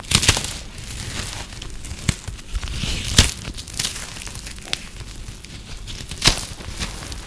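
Brittle, microwave-puffed soap being broken apart by hand: a gentle crunch and crackle throughout, with a few sharper snaps, the loudest about three seconds in and another a little past six seconds.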